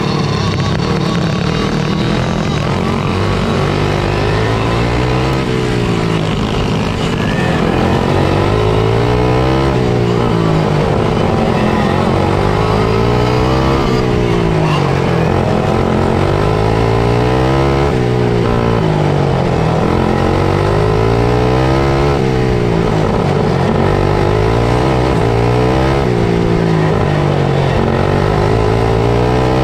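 Four-stroke dirt kart engine heard on board at racing speed. It climbs in pitch and falls back again about every four seconds, over and over, as the kart accelerates along each short straight and lifts for the next turn of the oval.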